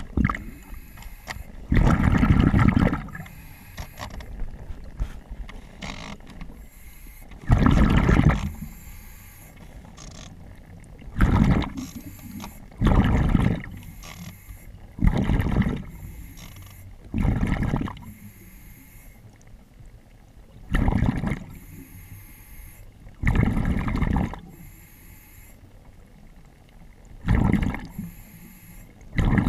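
A diver breathing underwater through diving breathing gear: a rush of air comes and goes every two to four seconds, each breath lasting about a second, over a steady background hiss.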